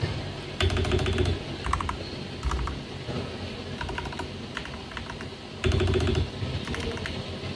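Typing on a Royal Kludge RK96 mechanical keyboard: a continuous run of quick key clicks, with two louder flurries of rapid keystrokes, about a second in and again near the end.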